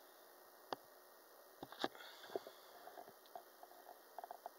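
Quiet room tone with a few faint, scattered clicks and taps.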